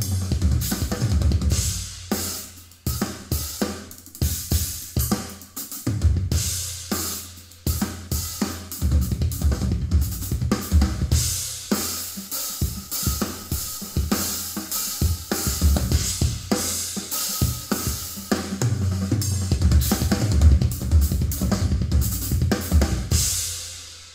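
Recorded drum kit playing, with kick drum, snare, hi-hat and cymbals, through a pair of Edifier R1855DB bookshelf speakers with the subwoofer switched off. The drumming dies away near the end.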